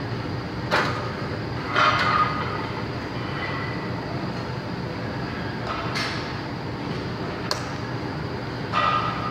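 Loaded barbell set back into the hooks of a steel power rack: a heavy metal clank about two seconds in, with the plates ringing briefly, among a few lighter knocks and clicks over a steady background noise.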